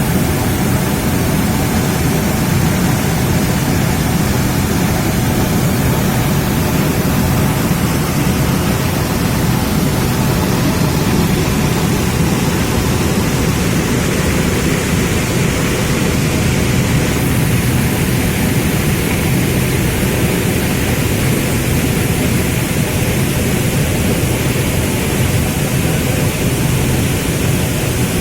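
Waterfall's steady rushing roar.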